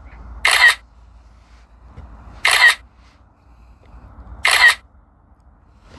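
Three camera-shutter clicks, evenly spaced about two seconds apart. Each is the sound the drone's controller app plays as the drone takes one photo of a hyperlapse sequence.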